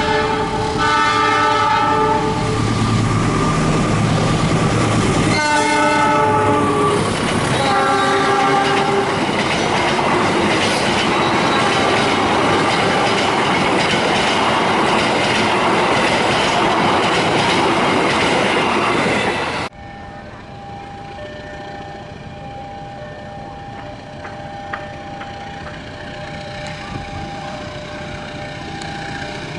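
Diesel locomotive horn sounding a long blast, then again about five seconds in, as a passenger train passes at speed with its wheels clattering over the rail joints. About twenty seconds in the sound cuts off suddenly to a much quieter scene with a steady two-note tone.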